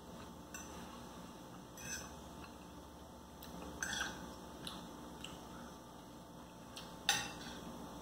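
Knife and fork clinking and scraping on a plate while food is cut and eaten: faint, scattered clicks, the loudest about seven seconds in.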